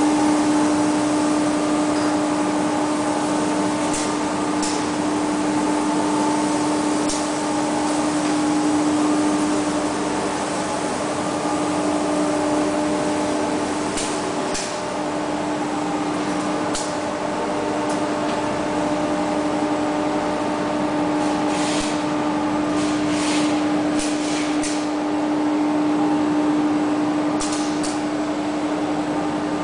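EVA sheet extrusion line running: a steady machine hum with a strong constant low tone over a haze of factory noise, with short high clicks now and then.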